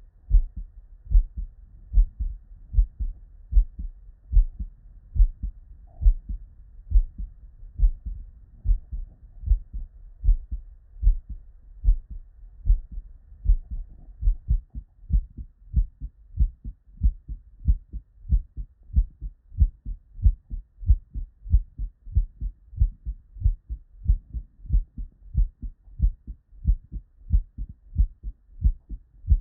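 Normal human heart sounds heard by auscultation: a steady, regular lub-dub rhythm of the first and second heart sounds (S1 and S2), dull low thumps repeating evenly.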